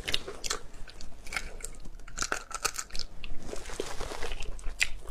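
Close-up eating sounds of spicy snails: chewing and crunching, with many irregular sharp clicks as a snail is worked with the fingers at the mouth.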